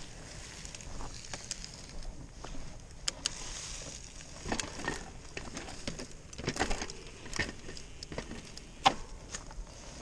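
Irregular crunching and clicking of dry fallen leaves and gravel under a mountain bike's tyres and the rider's feet, with one sharper, louder click near the end.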